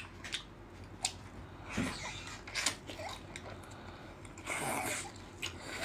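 Sucking and slurping meat out of a sea snail's shell, with soft chewing and a few light clicks; the longest slurp comes about four and a half seconds in.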